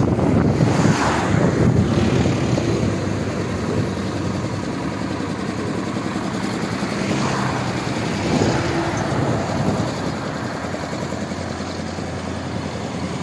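Highway traffic noise around a heavy-haul trailer convoy: a steady rumble of engines and tyres, with a few louder swells as vehicles pass, about a second in and again around seven and eight seconds.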